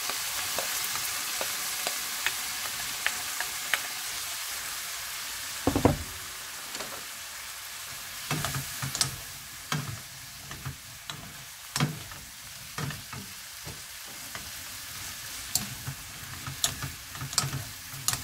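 Sweet potato stems sizzling in hot oil in a frying pan, the hiss strongest in the first few seconds. From about six seconds in, a wooden spatula stirs them, scraping and knocking against the pan.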